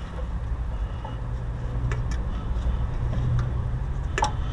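A steady low engine drone, like a motor vehicle running, with a few light clicks about two seconds in and near the end.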